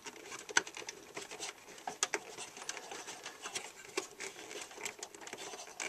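Light, irregular plastic clicks and rubbing from the Dell OptiPlex 760's plastic fan assembly as hands push it against its clips to unhook it from the case.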